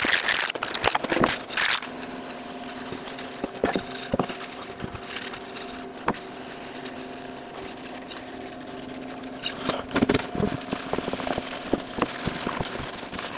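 Aerosol can of stain polyurethane shaken with a quick rattle, then sprayed in a steady hiss for several seconds. Near the end, a rag rubs the freshly stained wood, with scattered light knocks.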